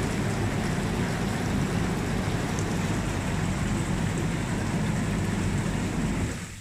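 Hot tub jet pump running, with water churning and rushing through the jets as a steady noise over a low hum; it cuts off suddenly near the end.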